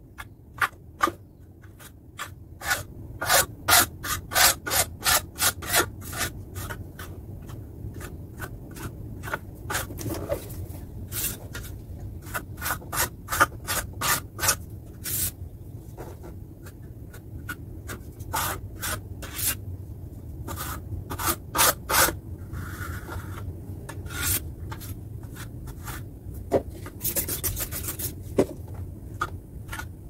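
Putty knife scraping across a plaster wall in quick runs of short strokes, spreading and smoothing wall putty over a damaged patch.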